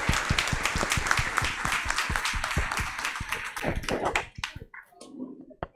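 Audience applauding, many hands clapping fast, dying away about four seconds in, with a few last scattered claps.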